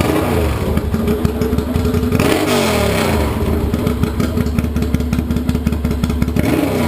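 A small engine running loud and fast with a rapid pulsing beat. Its revs fall away about two seconds in and again near the end.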